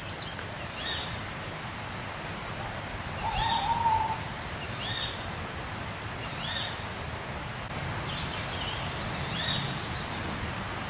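An owl hooting: one held hoot about three and a half seconds in. Short high calls repeat every second or two over a quiet outdoor background.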